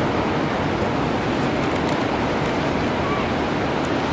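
A fast mountain river rushing over rocks: a steady, even noise of running water.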